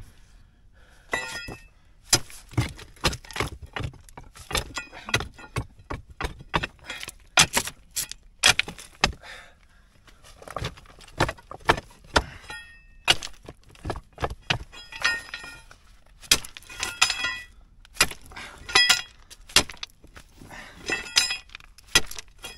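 Metal digging tool striking and prying at loose rock rubble under a boulder: repeated sharp metal-on-stone hits, some ringing, with stones clinking and clattering, two or three strikes a second and two short pauses partway through.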